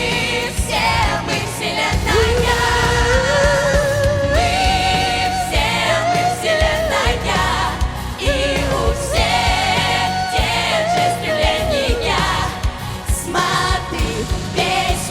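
A children's vocal ensemble singing a pop song over a backing track with a steady beat, holding long wavering notes.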